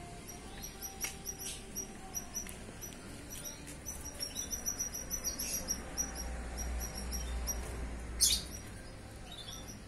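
Young canary giving short, high chirps scattered through, with one louder, sharp call about eight seconds in. A low rumble runs underneath for a couple of seconds past the middle.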